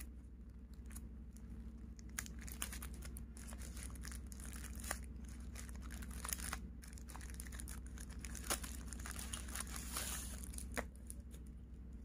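Thin plastic packaging bag crinkling and tearing as fingers pick it open and pull out a pair of earphones, with many short crackles throughout.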